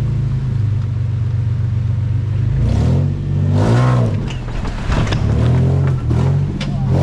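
Engine of a Titan-swapped Nissan Xterra running steadily, then revving up and down several times from about three seconds in, with a few sharp knocks near the end.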